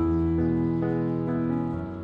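Instrumental background music: slow, held keyboard-like chords with notes changing every half second or so.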